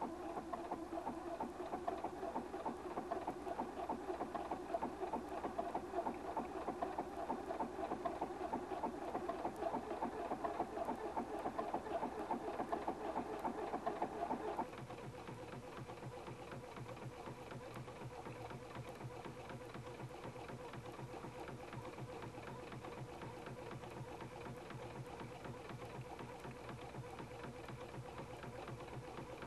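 Husqvarna Viking Platinum 770 computerized sewing machine stitching a decorative stitch row: a steady whir with rapid needle strokes. About halfway through the sound drops in level and turns lower, and it stays that way to the end.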